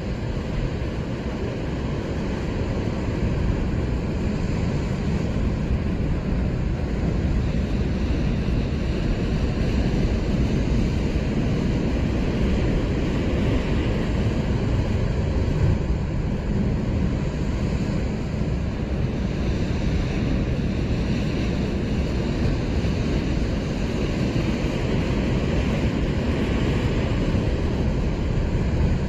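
Steady wind rumbling on the microphone over the wash of ocean surf breaking against the rocks below.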